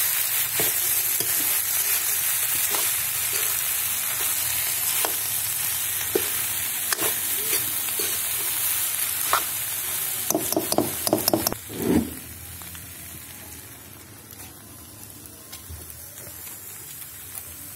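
Potatoes and cauliflower sizzling in a steel kadhai while a spoon stirs and scrapes against the metal, with scattered clicks. About ten to twelve seconds in come a quick run of louder metal knocks, and after that the sizzling falls to a much quieter hiss as the pan comes off the fire.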